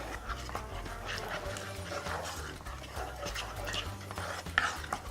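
Lemon custard mixture being stirred in a saucepan: soft, repeated swishing and scraping.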